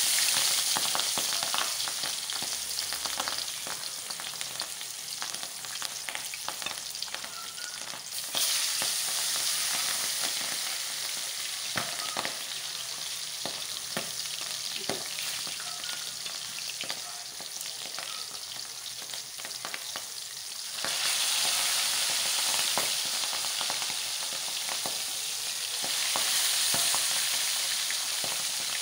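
Milkfish steaks frying in hot oil in a pan: a steady sizzling hiss with scattered crackles and pops. The sizzle flares louder about eight seconds in and again about twenty-one seconds in, as more pieces go into the oil.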